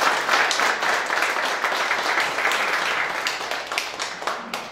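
A room full of people applauding, the dense clapping gradually dying down toward the end.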